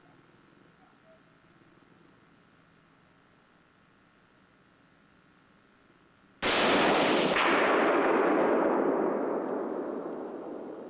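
A single hunting-rifle shot about six seconds in, sudden and loud, followed by a long rolling echo that fades away over the next four seconds. Before it, only faint high chirps.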